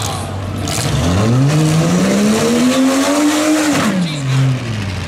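Demolition derby pickup truck engine revving hard: from about a second in it climbs steadily in pitch for a couple of seconds, then drops back just before the end, over a noisy din of other engines.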